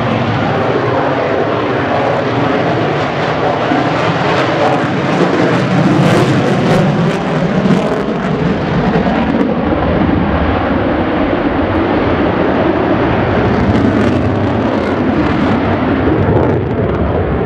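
Jet noise from an F-22 Raptor's two Pratt & Whitney F119 turbofans at high power as the jet manoeuvres overhead. It is a loud, steady rushing roar that grows deeper from about five seconds in and peaks a few seconds later.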